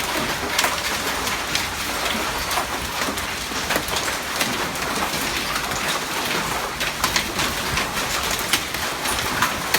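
Hail falling and pelting hard surfaces: a steady dense hiss with many sharp, irregular ticks of individual hailstones striking.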